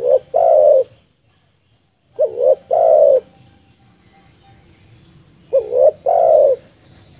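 Spotted dove cooing: three calls about three seconds apart, each a short stuttered note followed by a longer drawn-out note.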